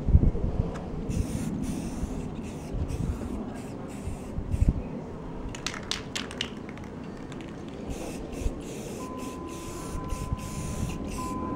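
Aerosol spray-paint can hissing in short bursts as a light coat of gloss black goes onto drum hoops. A few low thumps are heard, with a quick cluster of clicks about six seconds in.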